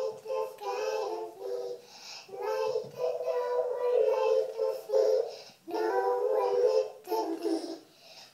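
A young girl singing a tune, holding long notes in short phrases with brief pauses between them.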